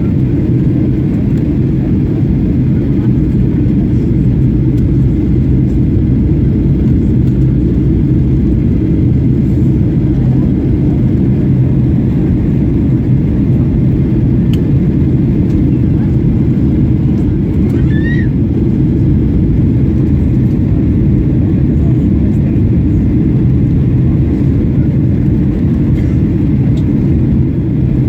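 Steady low cabin noise of a Boeing 737-800 in flight, the engines and airflow heard from inside the passenger cabin. About two-thirds of the way through there is a brief high rising chirp.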